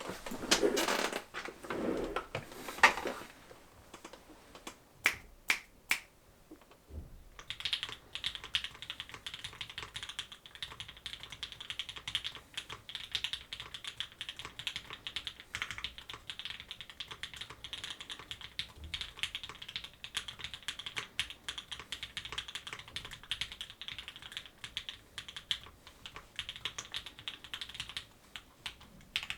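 Typing on a custom mechanical keyboard with lubed JWK Alpaca linear switches fitted with switch films, a carbon-fibre plate and GMK keycaps. A few louder knocks come in the first three seconds and a few single keystrokes around five seconds. From about seven seconds on, fast typing runs steadily.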